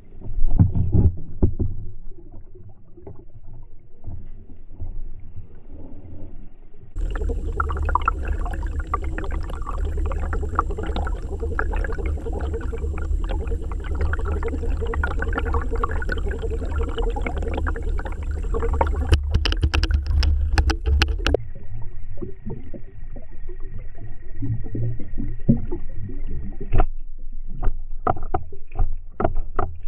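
Muffled underwater noise picked up by a submerged camera: water movement with scattered knocks and clicks, and a louder stretch of steady low rumble with a faint high whine through the middle. The sound changes abruptly a few times as the footage cuts between clips.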